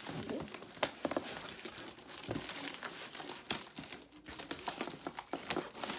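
Cardboard shipping box being cut and worked open with a utility knife, with irregular crinkling, scraping and small clicks of cardboard and packing material.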